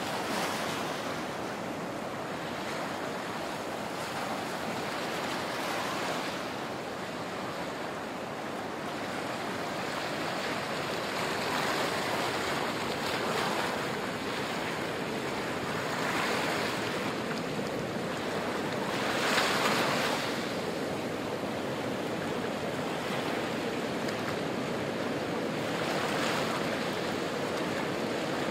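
Small waves breaking and washing up a sandy beach and around rocks, a soft rush that swells and falls back about every five seconds, the loudest about two-thirds of the way through.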